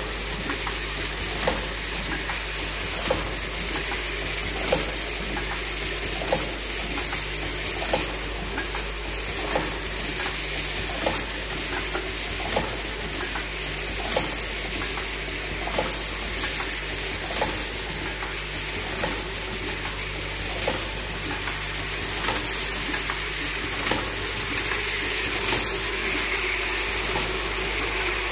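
Automatic terminal-block assembly machine running, a steady hiss under a sharp clack about every 1.6 seconds as each assembly cycle strokes, with lighter ticks between.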